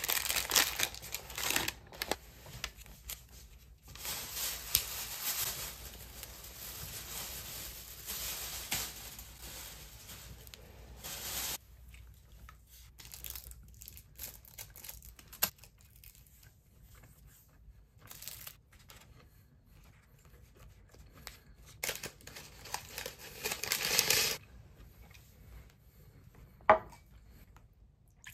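Paper and plastic food wrappers being torn open and crinkled by hand, in rustling bursts with quieter stretches between, and a single sharp click near the end.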